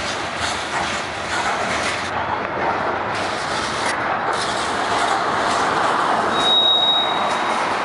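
Freight train of covered hopper cars rolling past on the rails: a steady rush of wheel and car noise, with a brief high steady squeal about six and a half seconds in.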